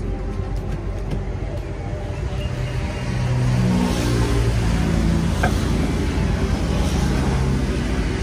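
Road traffic passing close by on a highway: a steady rush of engine and tyre noise, with a vehicle engine growing louder and shifting in pitch about three seconds in.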